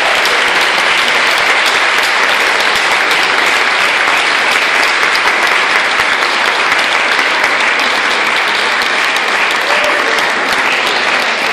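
Audience applauding, a dense, steady clapping that goes on throughout.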